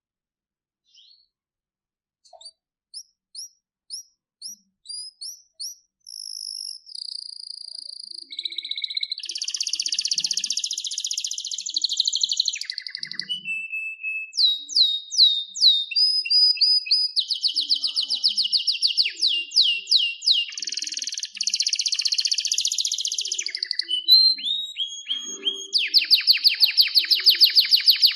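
Domestic canary singing. After a quiet start there is a run of short rising notes, then from about six seconds in a continuous song of fast trills and rolls.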